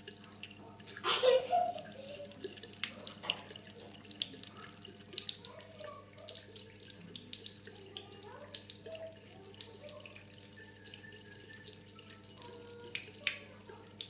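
Thin stream of tap water running into a ceramic bathroom basin, with a cat lapping at the stream: a steady trickle under many small irregular ticks and splashes. A brief louder burst about a second in.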